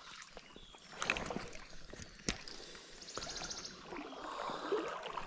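Water splashing and churning as a hooked trout fights in shallow river water. There is a sharp knock about two seconds in and a brief burst of rapid, high ticking about three seconds in.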